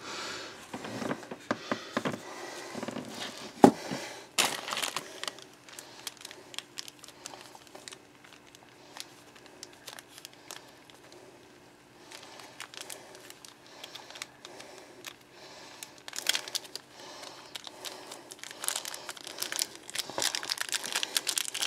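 Plastic packaging crinkling and rustling as hands handle it, with scattered small clicks and one sharp click about four seconds in; the crinkling grows busier near the end.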